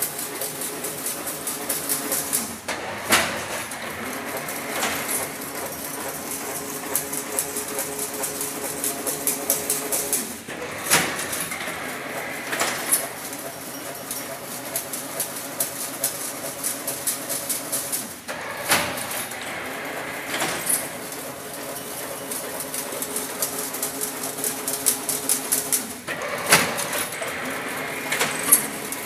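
Chain link fence making machine running: a steady hum with rapid clicking, and a sharp knock about every eight seconds as each working cycle turns over.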